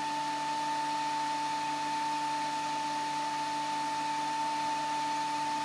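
Makita 18V cordless heat gun (DHG181) running steadily: a rush of blown air with a constant whine from its fan motor.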